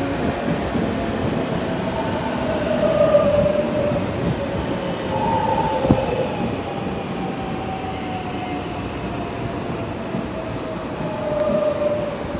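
Tokyu 9000-series electric train slowing into the platform to stop: a steady rumble of wheels on rail with a whine that falls slowly in pitch as it decelerates, and one sharp clack about six seconds in.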